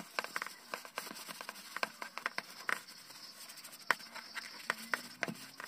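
A paper towel with cooking oil wiped and rubbed over a clear plastic gelatin mold, giving a quiet, irregular run of small clicks and crinkles from the paper against the plastic.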